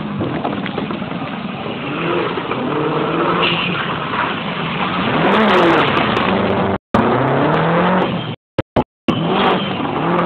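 Subaru Impreza rally car's turbocharged flat-four engine revving hard as the car slides through a corner close by. Its pitch rises and falls with throttle and gear changes, and it is loudest about six seconds in. The recording cuts out briefly a few times near the end.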